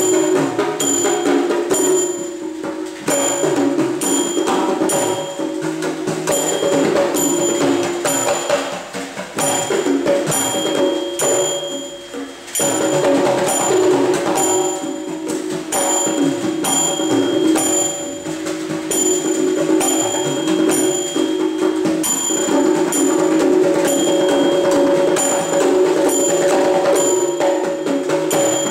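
Kutiyattam percussion ensemble playing: mizhavu copper pot drums and an idakka hourglass drum over the regular ringing clashes of small talam hand cymbals keeping time.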